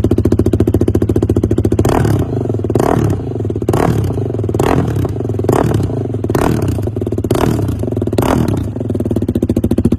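KTM Duke 390's single-cylinder engine through an aftermarket silencer, idling with a steady pulse, then blipped about eight times in quick succession, roughly once a second, each rev dropping straight back to idle before it settles again near the end.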